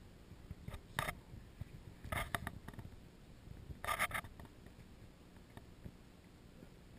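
Handling noise on a hand-carried GoPro action camera: a few brief scratches and rubs about a second in, around two seconds and around four seconds, over a faint low rumble.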